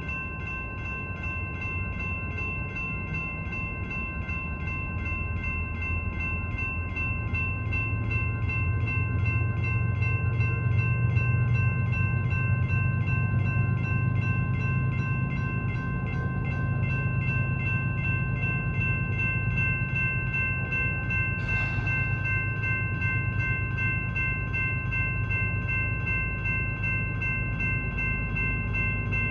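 Railroad grade-crossing bell ringing in quick, steady strikes. Under it runs the low rumble of a train, which grows louder from about a quarter of the way in and then holds. A brief hiss comes about two-thirds through.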